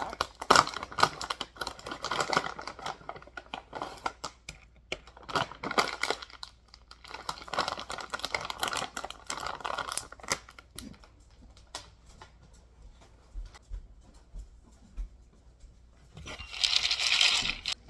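Plastic treat package crinkling and rustling as it is opened and handled, in irregular bouts with scattered clicks and knocks, and a louder rustle lasting about a second near the end.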